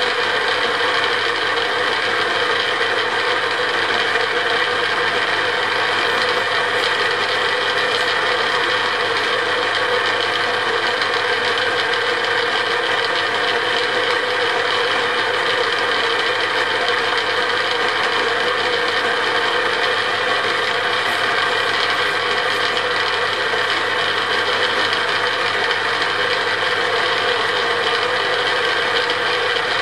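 Geared metal lathe running steadily at low spindle speed, its headstock gears giving an even whine and rattle.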